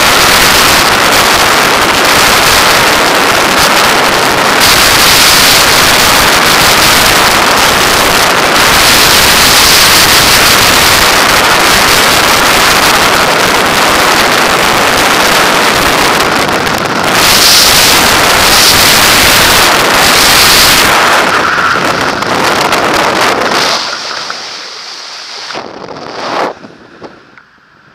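Loud rush of freefall wind buffeting the camera microphone during a skydive. Near the end it drops away sharply once the parachute is open, with one short loud gust, leaving much quieter wind under the canopy.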